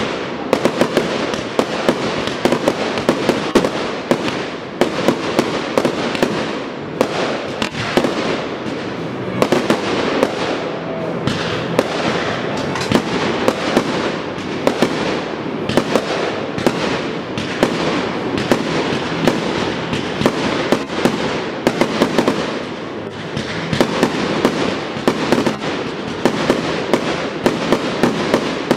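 Fireworks display in full barrage: aerial shells firing and bursting in quick succession, with many sharp bangs a second over a continuous rush of noise.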